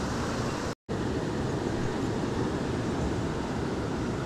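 Steady rushing of a river's flowing water, a plain even noise with no distinct events. The sound cuts out completely for a split second just before a second in, then resumes unchanged.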